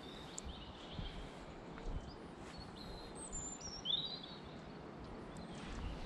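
Birds calling with a few short chirps, most of them about three to four seconds in, over steady outdoor background noise.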